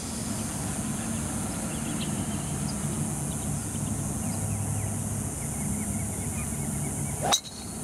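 Steady outdoor background with a low hum and faint bird chirps, then, about seven seconds in, a single sharp crack as a golf driver strikes the ball off the tee.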